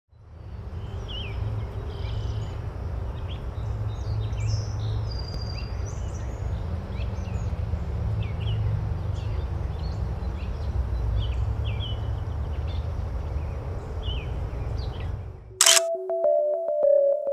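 Outdoor ambience of low wind rumble with birds chirping. Near the end it cuts off sharply with a camera-shutter click, and music of held synthesizer notes begins.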